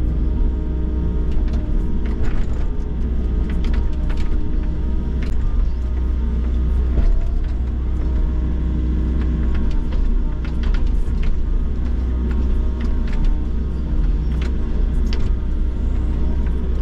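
Volvo excavator's diesel engine running steadily under load as it digs soil, with scattered clicks and knocks.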